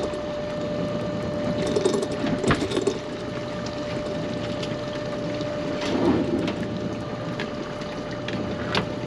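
Spencer Carter pot hauler running with a steady whine as it winches in the rope of a string of crab and lobster pots, with a few knocks as a pot comes aboard.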